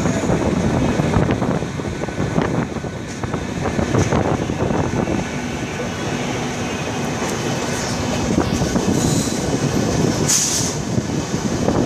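Humsafar Express coaches running along the track, heard from aboard at an open door or window: a steady rumble with irregular knocks and clatter as the wheels pass rail joints and points. There is a brief high squeal about ten seconds in.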